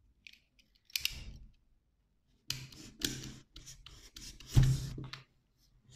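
Snap-off utility knife blade cutting and scraping through small polystyrene foam balls against a table, in a few short strokes with pauses between.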